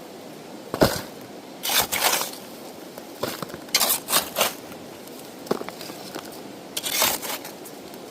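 Gold pan being worked with water and sand: irregular swishes and scrapes, about six in all, with one sharp knock about a second in.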